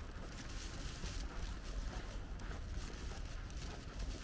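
Footsteps crunching on fresh snow while walking, over a steady low rumble.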